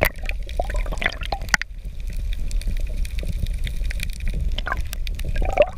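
Water sloshing and gurgling around a GoPro held underwater from a kayak: a muffled low rumble with scattered clicks and crackles. About one and a half seconds in there is a sharp knock, and the higher sounds drop away.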